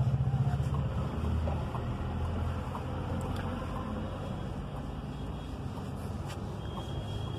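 Low, steady engine rumble of a motor vehicle, louder in the first couple of seconds, then settling to an even hum.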